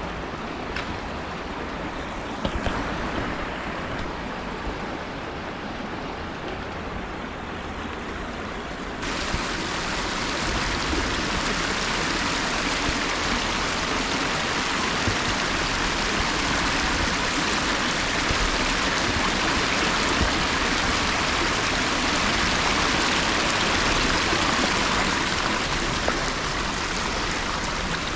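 Flowing river water running steadily; about nine seconds in it suddenly turns louder and brighter and stays that way.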